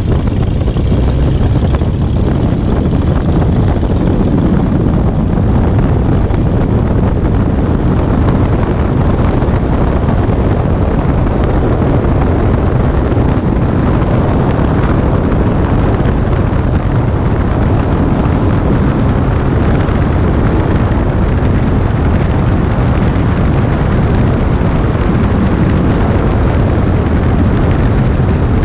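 Beechcraft Bonanza S35's six-cylinder piston engine and propeller running at high power during the takeoff roll, a steady, loud drone. It is heard from outside, under the wing, with a heavy low rumble of wind and rolling wheels over it.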